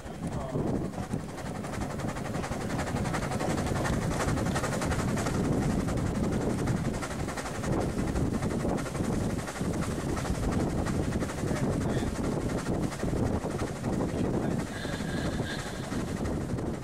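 A 1911 Stanley Model 85 steam car running uphill, heard from on board: a steady rushing, clattering mix of steam engine, running gear and tyres on tarmac. A brief high tone sounds near the end.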